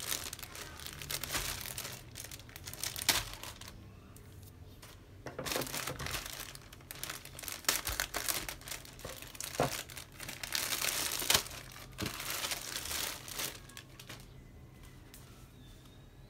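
Clear plastic bag crinkling in bursts as it is handled and cut open with scissors, with a few sharp snips among the rustling.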